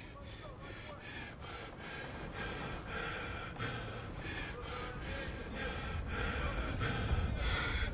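A wounded, exhausted man breathing hard in ragged gasps, about two breaths a second. A low rumble swells underneath toward the end.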